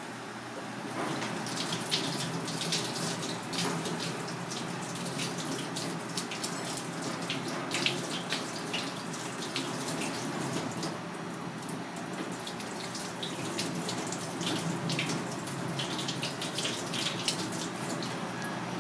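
Water running from a tap into a sink, with many short splashes and clicks over a steady rush.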